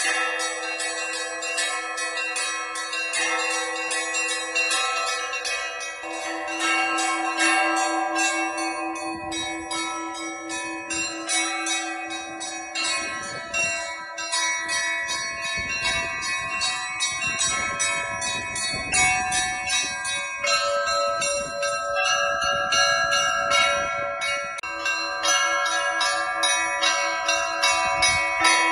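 Russian Orthodox church bells rung by hand by a single ringer: quick, rhythmic strokes on the small bells over the sustained ringing of larger, deeper bells.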